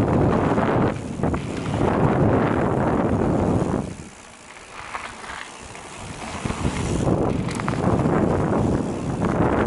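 Mountain bike riding down a dirt trail: wind rushing over the microphone, with tyre and bike rattle over the ground. It falls away for about two seconds near the middle, then builds up again.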